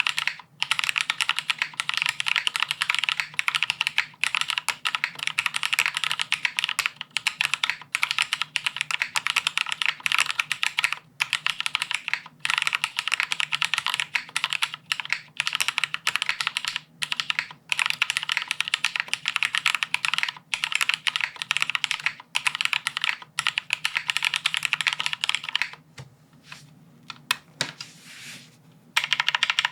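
Fast typing on a plateless, sandwich-mount Teahouse Cinque custom mechanical keyboard with lubed Cherry MX Black linear switches and GMK doubleshot ABS keycaps. The keystrokes come in a quick, continuous run with short breaks. Near the end there is a pause of a few seconds with only a few single keystrokes.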